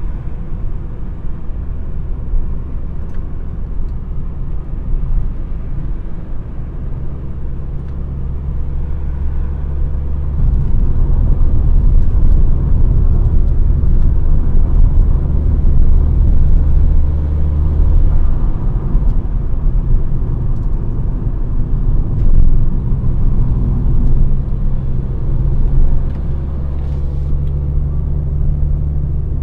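Volvo S60 2.0T's turbocharged engine driving through a straight-piped exhaust with no catalytic converter, giving a deep, steady exhaust drone. It gets louder about ten seconds in as the engine pulls harder, then eases back a little after about eighteen seconds.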